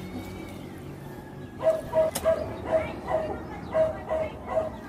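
An animal calling over and over, short pitched calls about two a second, starting about a second and a half in, with one sharp click among them.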